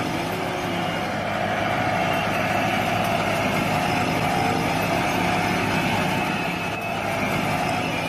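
Steady engine running sound, like a truck idling, from a remote-control toy excavator's sound effects as it digs.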